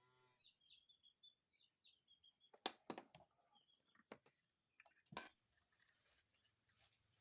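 Small electric motor (the power window motor driving the coil winder) humming, then cutting off about half a second in. After that come faint, scattered sharp clicks and knocks, with faint bird chirps in the background.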